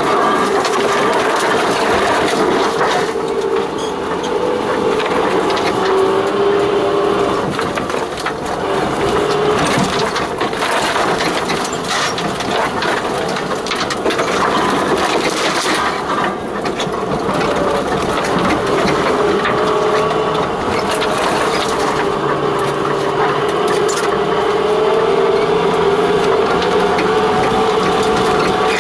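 Off-road vehicle's engine running steadily at low speed while hedge branches and undergrowth scrape and brush along the bodywork, with many small snaps and clicks throughout.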